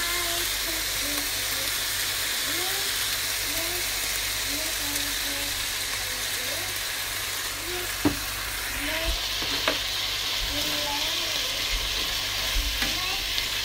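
Sliced beef, onions and red bell pepper sizzling in a frying pan with sauce, a steady frying hiss. A couple of sharp knocks sound about eight and ten seconds in.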